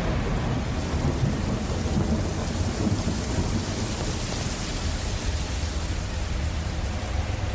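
Steady rain with a low, rolling thunder rumble underneath, the rain's hiss swelling slightly in the middle.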